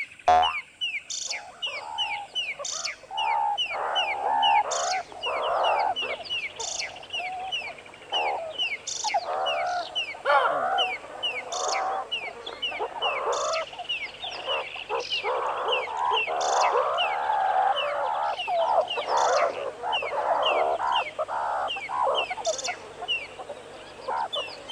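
Meerkats chattering, with irregular clusters of wavering calls over a fast, steady run of short high chirps.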